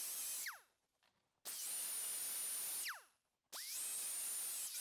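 Right-angle air die grinder with a small sanding disc grinding down TIG tack welds on a sheet-steel fender seam, run in short bursts with a high whine. It winds down with a falling whine about half a second in, then runs two more bursts of about a second and a half, each starting with a rising whine and ending with a falling one.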